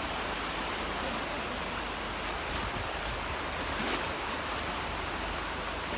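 Baltic Sea surf washing onto the beach: a steady rush of waves with no distinct breaks.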